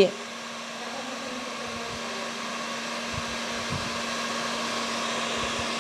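Electric heat gun blowing steadily with a constant low hum, slowly getting a little louder, as it dries freshly brushed patina on resin moldings.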